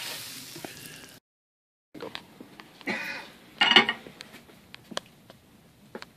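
Hot oil sizzling in a cast-iron skillet as a towel wipes it round, cut off abruptly about a second in. After a moment of silence, the heavy skillet clanks and scrapes onto a metal stove top, loudest twice in a row, then a few light clicks.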